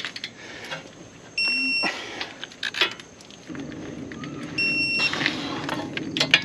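Digital torque wrench beeping twice, about three seconds apart, each a short steady high beep of about half a second, as strut bolts reach their 170 foot-pound setting. Scattered clicks come between the beeps, and a steady low rumble comes in about halfway.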